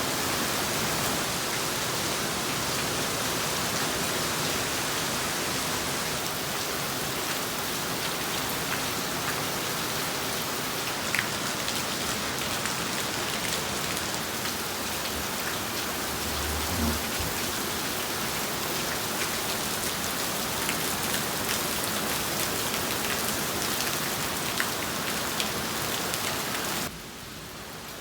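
Heavy rain pouring down in a thunderstorm downpour, a dense steady hiss with scattered sharp ticks of drops striking. A brief low thud comes about two-thirds of the way through, and the level drops suddenly near the end.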